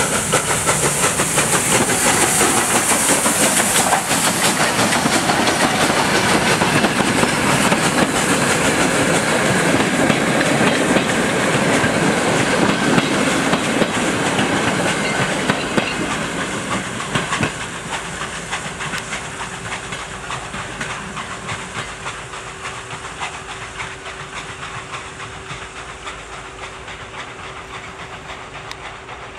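Ol49 steam locomotive pulling away with a passenger train: loud steam hissing, and the wheels of the locomotive and coaches clattering over the rail joints. About halfway through the sound falls away as the train moves off, and a steady hum comes in.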